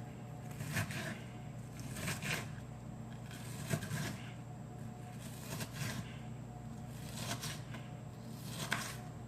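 Knife dicing an onion on a cutting board: scattered sharp cuts at an uneven pace over a steady low hum.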